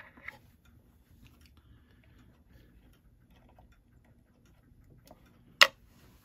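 Faint, irregular small ticks and scrapes of a bushing cutter working a brass clock plate, with one sharp metallic click about five and a half seconds in.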